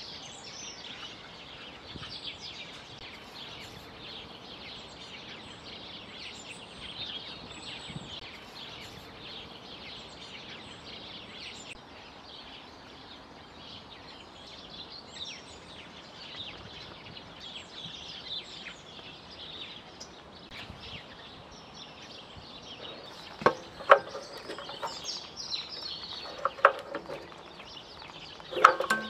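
Birds chirping over steady outdoor background noise. Near the end come a few sharp knocks as the recoil starter of a rusty Briggs & Stratton 3 HP engine is tugged: the engine is seized and won't pull over.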